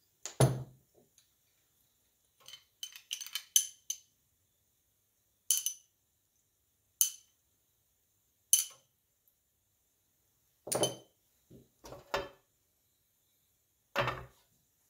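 A kitchen utensil clinking and knocking against a non-stick pan and other cookware: a dozen or so separate knocks and clinks with silence between. Three single sharp clinks fall evenly spaced around the middle, and the heaviest knocks come just after the start, near eleven seconds and near the end.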